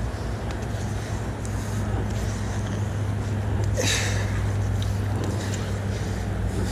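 Steady low engine hum under an outdoor rush of noise, with one brief louder burst of noise about four seconds in.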